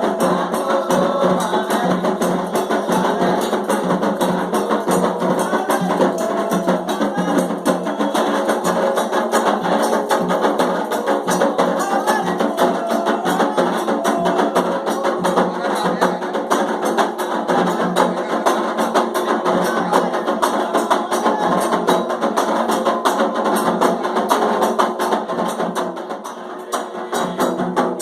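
Afro-Brazilian Candomblé ceremonial music driven by steady, fast percussion. It dips in loudness briefly near the end.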